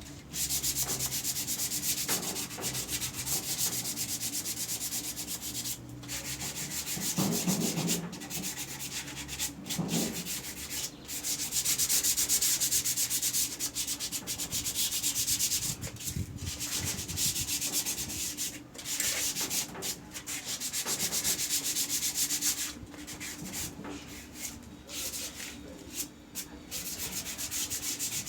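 Hand strokes rubbing back and forth over a wooden chair surface, in irregular runs with short breaks between them, with a couple of soft knocks about a third of the way in.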